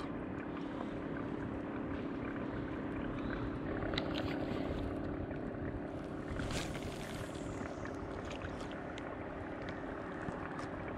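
Steady low hum over an even background noise, with a few faint light clicks.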